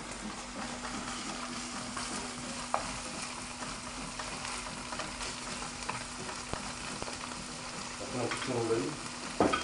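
Canned tuna sizzling in olive oil in a non-stick frying pan while a wooden spatula stirs it, with scattered scraping clicks. A sharp knock near the end.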